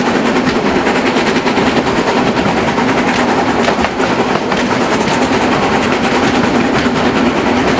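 Harz narrow-gauge steam train running, heard from an open window of one of its coaches: a loud, steady rush of wheels on rail with the smoking locomotive working at the head of the train.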